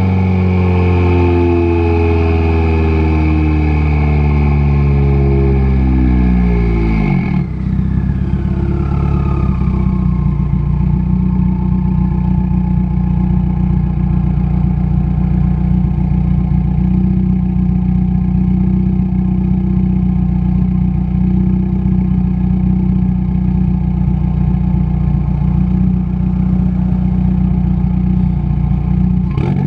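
2015 Subaru WRX's turbocharged FA20 flat-four running through a catless J-pipe and single-wall axle-back, heard right at the tailpipe. The engine note falls steadily for about seven seconds as the car slows, then settles into a steady idle with the car stopped.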